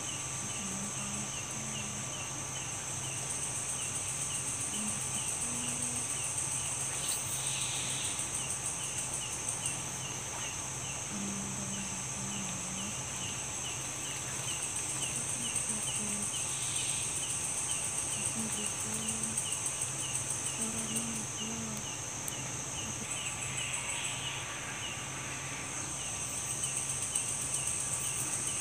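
Night insect chorus: crickets and other insects trilling steadily at a high pitch, with one cricket chirping in a quick, regular rhythm.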